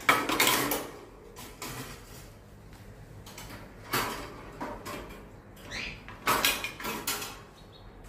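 Metal wire birdcage rattling and clanking in several bursts as it is handled and its parts are pulled about.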